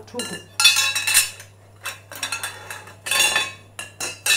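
Long white bed-rail frame tubes clattering and clinking against one another as they are slid and gathered on the floor, in several short bursts with a ringing tone.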